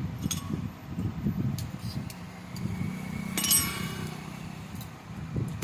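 Metal knocks and clinks from work on a refrigerator compressor's copper winding, with one ringing metallic clink about three and a half seconds in.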